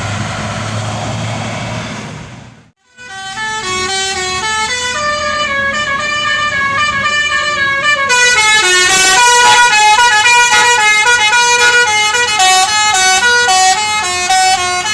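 Bus telolet basuri air horn playing a melody of short stepped notes, getting louder about eight seconds in. Before it, a few seconds of passing-traffic noise that drops away abruptly.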